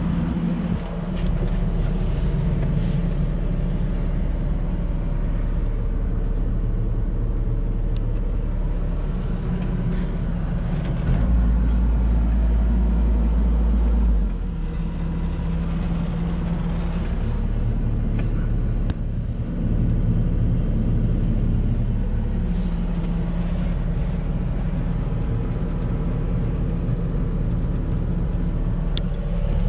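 Cat 304E2 CR mini excavator's diesel engine running steadily. For about three seconds near the middle it grows louder and deeper.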